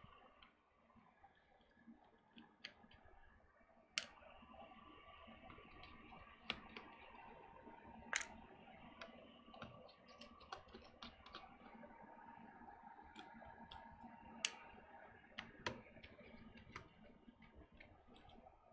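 Faint, scattered clicks and taps of a small screwdriver and parts being handled on an opened MacBook, a few of them sharper, over quiet room tone.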